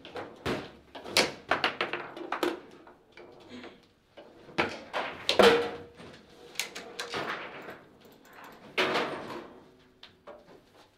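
Foosball table in play: sharp, irregular cracks and clatters of the ball being struck by the plastic figures and knocking against the table walls, and of the rods knocking in their bearings, in quick clusters with the loudest hit about halfway through.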